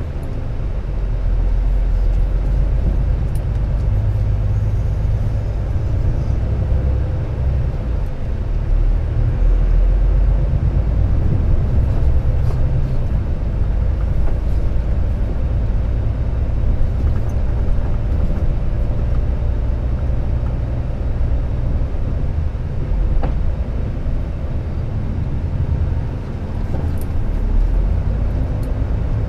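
Volvo truck's diesel engine running as the truck drives slowly through streets, heard from inside the cab: a steady low rumble that rises and falls a little with the throttle.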